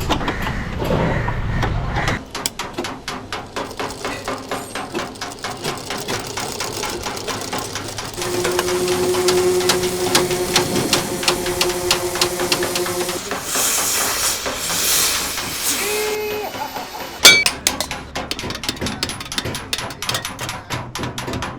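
Scrap metal being hammered and knocked about in a scrap yard: a fast, dense run of metal strikes and clatter. A steady hum sounds for several seconds midway, followed by a brief hiss, and one much louder clang comes about 17 seconds in.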